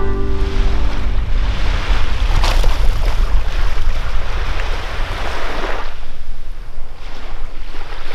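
Small waves washing onto a sandy beach, surging and ebbing every few seconds, with wind rumbling on the microphone.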